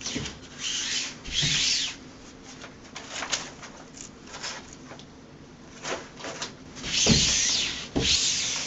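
Hands rubbing and smoothing a peel-and-stick vinyl wall mural against the wall in separate swishing strokes, pressing out air bubbles. The strokes are loudest near the end.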